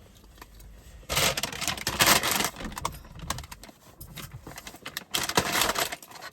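Bursts of rustling with many small clicks and clinks, beginning about a second in, like things being handled.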